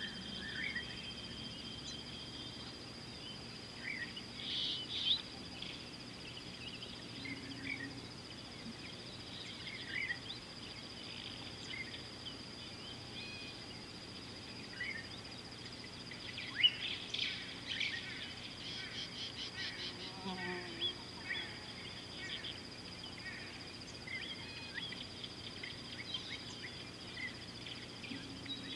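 Natural bush ambience: a steady high-pitched insect drone, with scattered short bird chirps and calls over it and a quick run of repeated bird notes about two-thirds of the way through.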